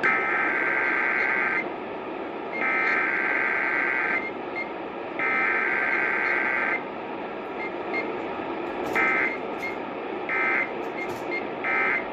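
Emergency Alert System SAME data tones, received over AM radio static. There are three long data bursts of about one and a half seconds each, roughly a second apart, then three short bursts about 1.4 s apart near the end, in the pattern of the end-of-message code.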